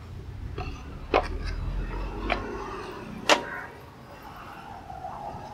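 Sharp metallic clicks and taps from hand work on a rat trap: three distinct strikes, the loudest about three seconds in, with a few lighter ticks between, over a low rumble that dies away after about three seconds.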